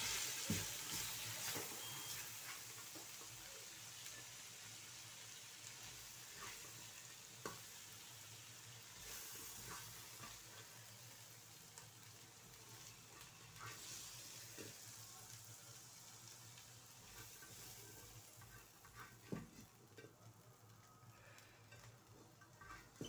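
Stir-fried tempeh and chillies sizzling in a wok with the stove just switched off, the hiss fading as the pan cools. Now and then a spatula scrapes and knocks against the wok as the food is scooped out.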